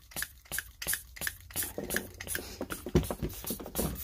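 Quick, even hand-pump strokes, about two or three a second, each a short hiss, during a vacuum leak test of a Stihl MS170 chainsaw that is hunting an air leak.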